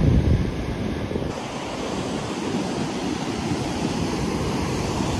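Surf washing onto a sandy beach, a steady rushing noise, with wind buffeting the microphone, hardest in the first half-second.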